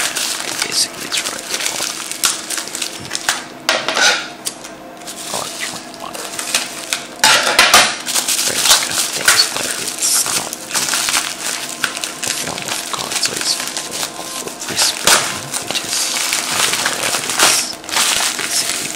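Taped cardboard parcel being handled: irregular rustling and crinkling of cardboard and packing tape, with scattered sharp knocks and clatters.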